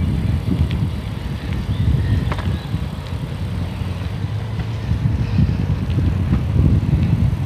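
Wind buffeting the microphone of a camera on a moving bicycle: an uneven low rumble, with a few faint ticks.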